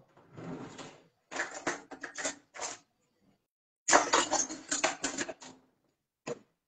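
Cutlery and dishes clinking and clattering as kitchen utensils are handled, in two runs of quick clinks, the second louder.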